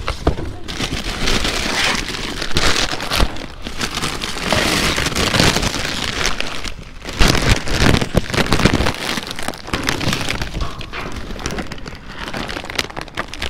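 Plastic bags and packaging rustling and crinkling as goods are grabbed and piled up, a dense continuous crackle with a few heavier thumps, the loudest about seven seconds in.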